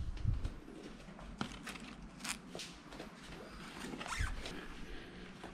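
Light rustling and scattered small knocks as shoes are handled on a wire shoe rack and a sneaker is pulled out, with handling noise from the camera.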